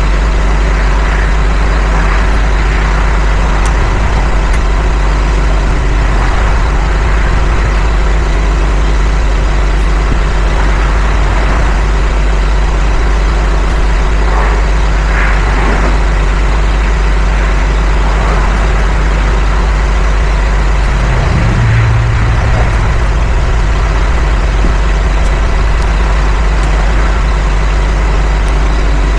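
Engine idling steadily, with a short louder low hum about three-quarters of the way through.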